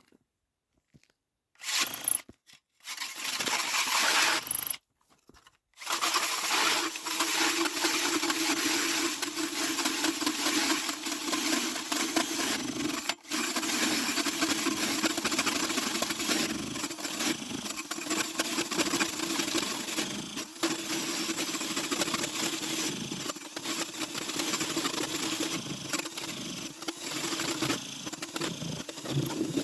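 Power ice auger: a couple of short bursts of the motor, then from about six seconds in it runs steadily, boring a hole through the lake ice.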